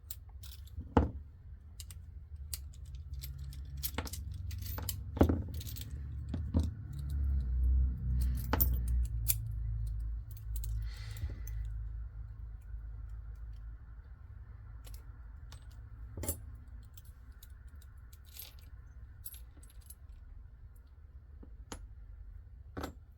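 Small metal clicks and clinks of a pin-tumbler lock being taken apart and put back together by hand: loose parts tapping and dropping, scattered irregularly, with a stretch of low handling noise about a third of the way in.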